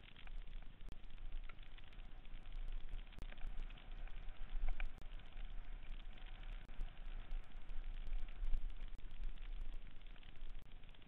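Mountain bike descending fast on dirt singletrack, heard from a camera mounted on the rider: a steady crackle of tyres over dirt and forest litter, with many small clicks and rattles from the bike and mount, and a low wind rumble on the microphone.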